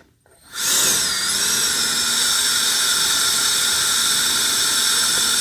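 EUKI F31 cordless turbo-fan air duster switched on at its lowest speed: about half a second in it starts with a wavering high whine that settles into a steady whine over a rush of air.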